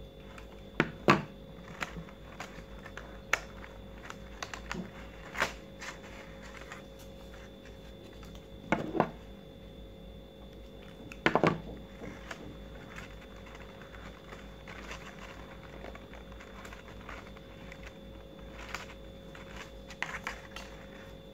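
Stiff paper petals rustling, crinkling and tapping as they are handled and glued into a large paper flower with a mini hot glue gun: scattered clicks and rustles, the loudest about a second in and about halfway through, over a faint steady hum.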